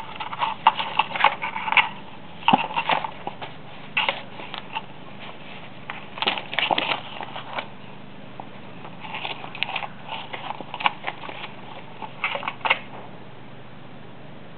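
A kitten scratching and rustling in a cardboard game box, its paws and claws crinkling the paper money and cards. The sound comes in irregular clusters of scratchy rustling, with quieter gaps between.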